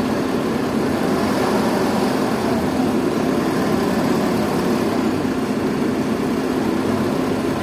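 Diesel engine of heavy lifting machinery running steadily at an even pitch.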